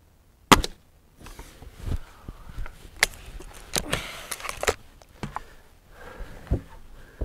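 A Gamo Swarm Magnum 10x Gen II .177 break-barrel air rifle fires once about half a second in, with no supersonic crack from the heavy H&N Baracuda Match pellet. The barrel is then broken open and cocked, with scraping and a run of clicks, and snapped shut with a sharp clack near the end.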